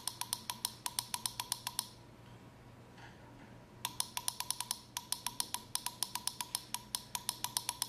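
Rapid clicking of the push button on a Full Gauge TIC-17RGTi digital temperature controller, pressed over and over to step the sensor offset value up toward zero. The clicks come about five or six a second, with a pause of about two seconds before they start again.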